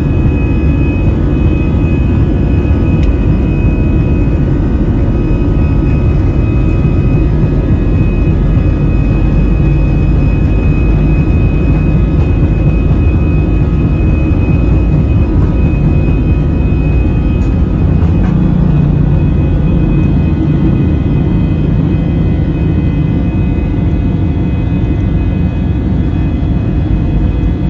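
Airbus A320 jet engines at high takeoff/climb thrust, heard from inside the passenger cabin: a loud steady rumbling rush with a steady high whine over it.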